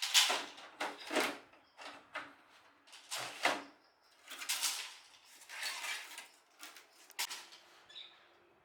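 A run of short, irregular scraping and rubbing sounds from hand work on parts, with a sharp click about seven seconds in.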